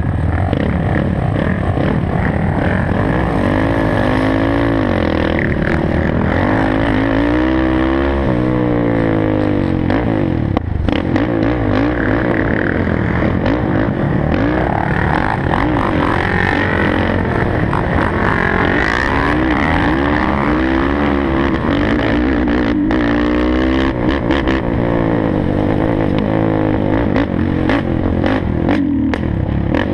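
Sport quad (ATV) engines running and revving up and down again and again as several quads ride together.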